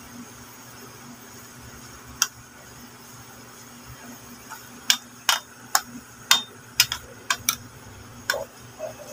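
Metal spoon clinking against the sides of a stainless steel pot while stirring leaves: one sharp clink about two seconds in, then a run of about nine sharp clinks, roughly two a second, from about five seconds in.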